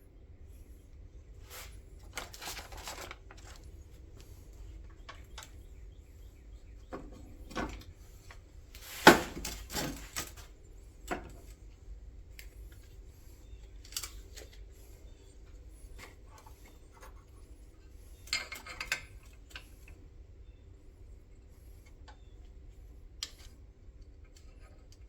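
Scattered metallic clinks, taps and rattles of parts and hand tools being handled, with the loudest clank about nine seconds in. A faint steady hum runs underneath.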